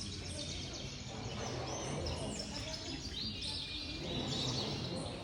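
Many caged canaries chirping and trilling at once, their high notes overlapping continuously over a steady low background rumble.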